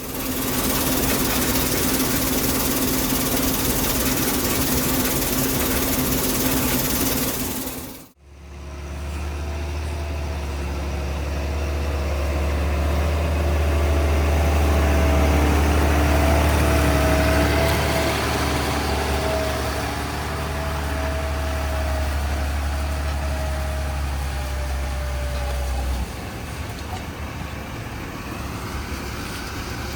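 Heavy diesel farm machinery running at work, in three separately edited clips with hard cuts about 8 s and 26 s in. The middle clip is the loudest: a deep steady drone with a wavering high whine over it.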